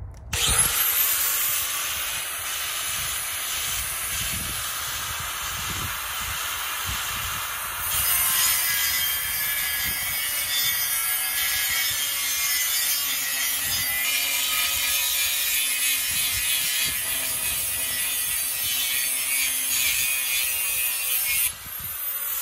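Angle grinder with an abrasive cutting wheel spinning up and cutting through thick metal plate: a steady, high-pitched grinding whine that gets louder about a third of the way in. Near the end the trigger is released and the motor winds down.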